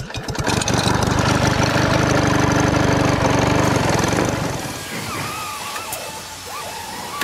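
Film projector sound effect: a fast, steady mechanical clatter with a low hum under the countdown leader. It drops off about four seconds in, leaving a softer wavering tone.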